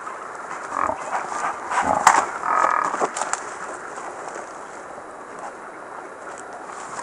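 Deer scuffling while they rear up and flail at each other with their front hooves: rustling and knocks, busiest in the first half, over the steady hiss of a trail camera's microphone.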